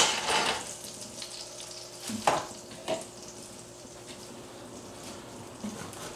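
A hot cast-iron skillet is set down with a clank, and the butter and fat left from searing short ribs sizzle in it, fading over a couple of seconds. Two short knocks follow a little over two seconds in.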